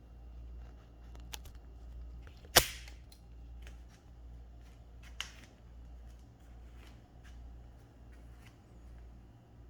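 Olympia Traveller de Luxe S portable manual typewriter mechanism clicking: a few scattered light clicks and one sharp loud snap about two and a half seconds in.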